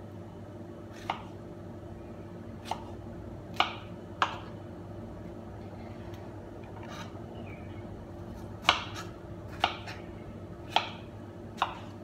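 Small kitchen knife cutting fresh fruit, its blade knocking sharply on the cutting surface about eight times at irregular intervals, over a steady low hum.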